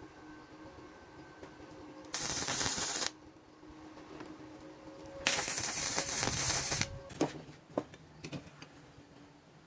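Two short bursts of hiss, the second longer, over a faint steady hum, followed by a few light clicks.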